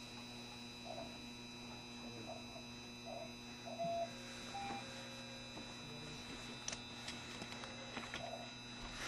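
Steady electrical hum inside a JR Shikoku 7200-series electric train car, with a few faint short tones and clicks and no running noise from wheels or track.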